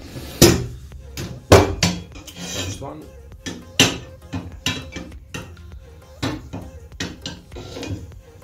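Steel and aluminium mirror-cell plates and frame bars being handled on a wooden table: an irregular run of sharp metal clanks and knocks, with lighter scrapes and taps between them.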